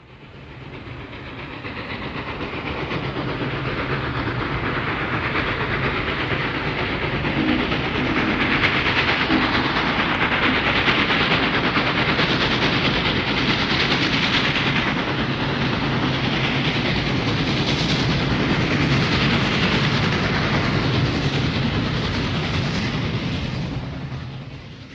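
Steam train passing by: the sound grows over the first few seconds, holds loud and steady with a rhythmic clatter, then fades out near the end.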